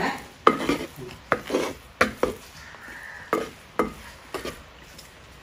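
A spoon stirring jackfruit stir fry in a pan, knocking and scraping against the pan in about eight irregular sharp clicks.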